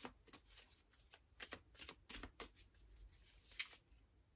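A deck of cards being shuffled by hand: faint, irregular flicks of card edges, with one sharper flick about three and a half seconds in.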